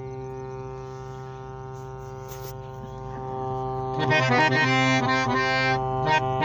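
Harmonium sounding a steady held drone, then from about four seconds in, a louder run of quick melodic notes played on the keys over the drone, in a raag. There is a brief click about two and a half seconds in.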